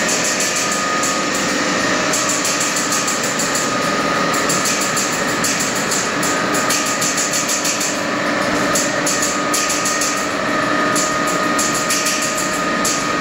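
Organic fertilizer production line machinery running: a steady mechanical hum with several held tones and a fast, even rattle.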